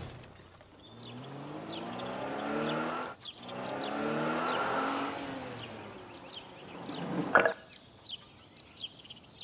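Animated sound effects: a small cartoon truck's engine running and swelling twice, rising and falling in pitch, with birds chirping throughout. A short, sharp sound effect comes about seven seconds in.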